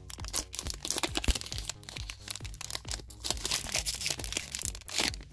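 Foil wrapper of a trading-card booster pack crinkling and tearing as it is opened, in irregular crackly bursts with the loudest crackle near the end. Background music with a steady beat plays underneath.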